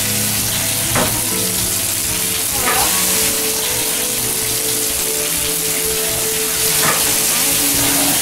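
Sustained low synthesizer notes of background music, changing pitch every few seconds, over a loud steady hiss, with a few brief swishes.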